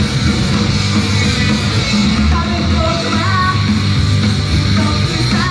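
Loud rock music with guitar during a live idol-group song.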